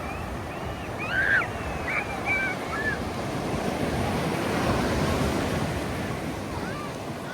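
Ocean surf breaking and washing ashore, swelling to its loudest about halfway through. A few short, high cries come in the first three seconds.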